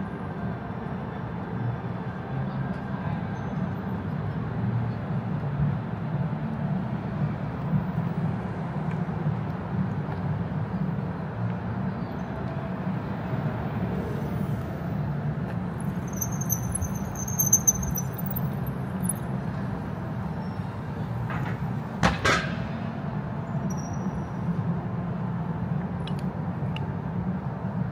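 Steady low vehicle rumble, with a brief high squeal about two-thirds of the way through and a sharp click a little later.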